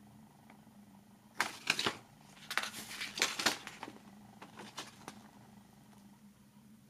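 Paper pages of a booklet being turned by hand: two bursts of rustling and riffling, then a few lighter page flicks.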